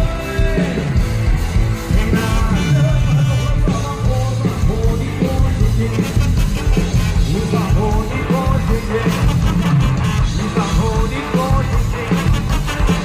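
Thai ramwong dance band playing live, loud and continuous, with heavy bass and a steady beat.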